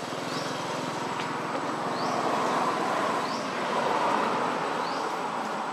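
Outdoor ambience: a steady rushing noise that swells about halfway through and eases again, with a short rising chirp repeated about every second and a half.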